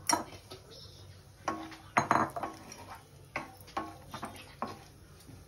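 Wooden spatula knocking and scraping against a frying pan while stirring cashews frying in ghee: several irregular knocks, the loudest about two seconds in.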